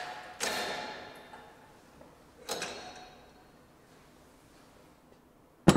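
Metal clanks from a hydraulic cylinder and puller pressing a wheel hub out of its bearing. Two sharp clanks, about half a second in and about two and a half seconds in, each ringing on and fading over about a second, with a small click near the end.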